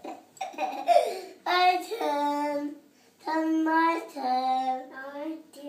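A young child singing in a few long held notes.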